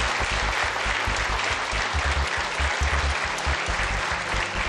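Studio audience applauding steadily, over a low pulsing beat of the show's music.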